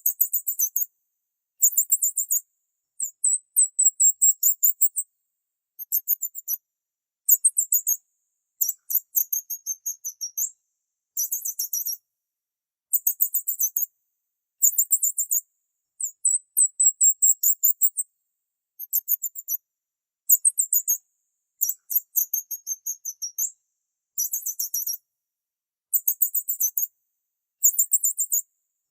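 Small bird chirping in rapid, very high-pitched trills, repeated as short bursts about a second long with brief pauses between them.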